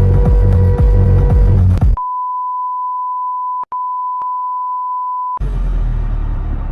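Electronic music with a heavy beat, then about two seconds in a steady single-pitch beep replaces everything for about three and a half seconds, with a brief click-like break partway through; dense noise comes back near the end.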